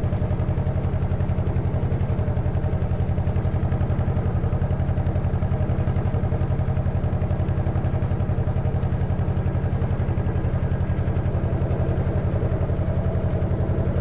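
Narrowboat engine running steadily at cruising speed, with an even, fast pulsing beat.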